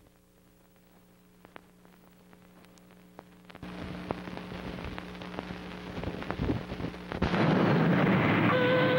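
Near silence with a faint hum and a few clicks, then a rising rush of noise. About seven seconds in, loud, steady construction-site noise with a concrete mixer truck running cuts in, and a steady pitched tone joins near the end.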